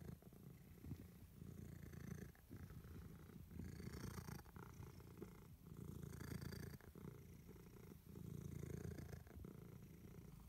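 Domestic cat purring faintly while being stroked on the head, the purr swelling and easing about every two seconds.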